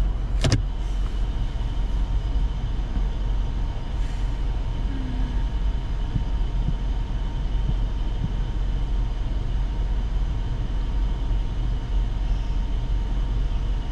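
Steady low rumble of a car's cabin while the car sits still, with one sharp click about half a second in.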